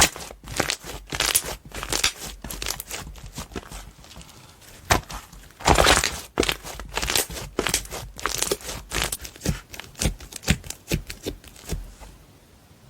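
Slime being squished and stretched by hand, giving quick sharp pops and crackles, with a louder burst about six seconds in. The crackling stops shortly before the end.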